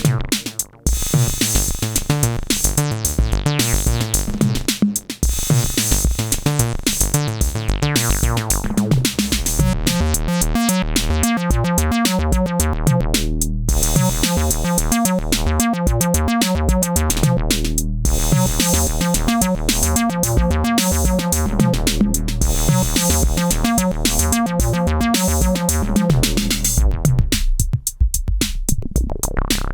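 An acid bass line sequenced on an Elektron groovebox, playing over a programmed drum-machine beat. The bass pattern's tone keeps shifting, and the beat drops out briefly a few times, once near the end.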